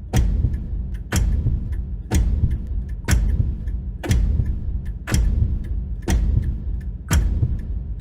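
Suspense heartbeat sound effect: a deep, sharp-edged thump about once a second over a steady low rumble, with a faint tick between the beats.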